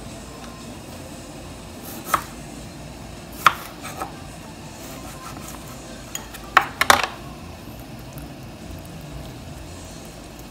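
Chef's knife cutting through limes on a wooden cutting board: a few sharp knocks of the blade meeting the board, one about two seconds in, two more around three and a half to four seconds, and the loudest quick cluster around seven seconds.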